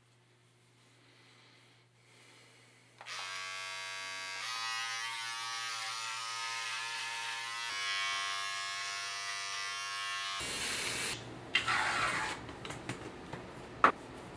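Electric beard trimmer buzzing steadily as it cuts through a beard, starting about three seconds in, its pitch shifting slightly a couple of times. The buzz cuts off about ten seconds in, followed by a short hiss, a few small clicks and one sharp click near the end.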